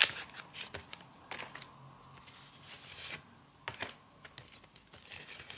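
Stiff paper greeting cards and envelopes being handled and shuffled in the hands: irregular soft clicks and rustles of card stock as the cards are moved and flipped.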